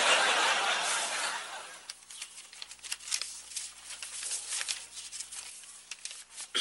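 A paper letter rustling and crinkling as it is handled and unfolded. A rough rustle comes first, fading over the first second or two, and is followed by a run of small crackles as the sheet is opened out.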